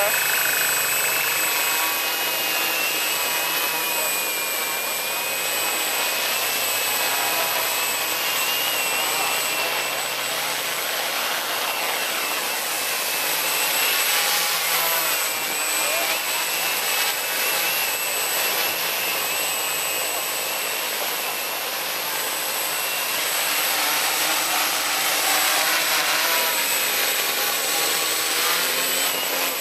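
Quadcopter's four brushless motors and propellers whining steadily as it hovers low, the pitch wavering slightly as the motors adjust speed.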